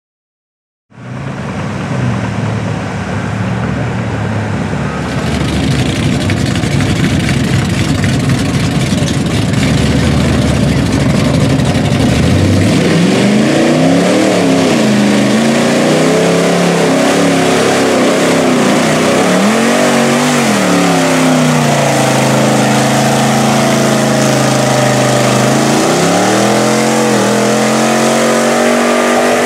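A lifted Chevrolet pickup's engine revving hard as the truck churns through a deep mud pit, its tires throwing mud. After a steady loud run, the engine rises and falls in pitch in several repeated surges from about halfway through.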